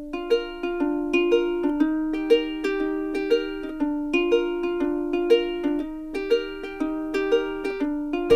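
Music: a light tune of quick plucked-string notes at a steady, even pace.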